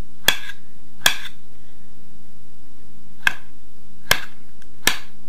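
Kitchen knife cutting cooked beetroot on a cutting board: five short, sharp knocks of the blade striking the board, spaced irregularly about a second apart.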